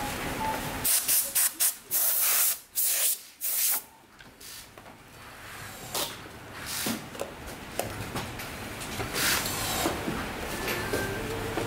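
Compressed-air blow gun hissing in blasts, several short ones and then two longer ones, as dust is blown off a CD player; after that come softer handling noises as tissue paper is laid over the player.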